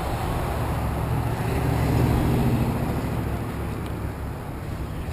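Car traffic on a town street, with a vehicle going by that swells to its loudest about two seconds in and then fades.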